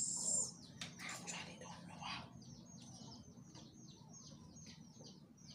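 A bird chirping over and over: short, high, falling chirps at about three a second. About a second in there is a knock, with some rustling just after it.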